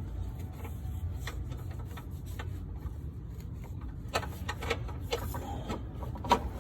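Metal tool clicks and clinks as a wrench is worked on a newly fitted oxygen sensor. The clicks are sparse at first and come thicker over the last couple of seconds, with one sharper clack near the end, over a steady low hum.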